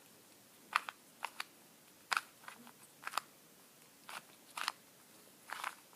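2x2 Rubik's cube being turned by hand: the plastic layers give short, sharp clicks at irregular intervals, often two in quick succession.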